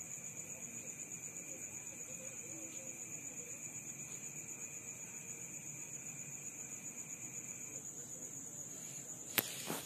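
Night insects trilling steadily: a high, fast-pulsing trill that never lets up, with a lower steady second tone that stops about eight seconds in. A single sharp knock comes near the end.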